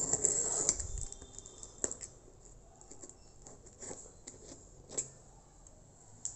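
A taped cardboard box being opened by hand: rustling and scraping of cardboard and packing tape, loudest in the first second, then quieter, with a few sharp clicks and knocks.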